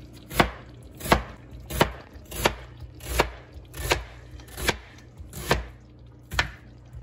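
Chef's knife slicing an onion thin on a plastic cutting board: a steady series of about nine knife knocks against the board, one roughly every 0.7 seconds.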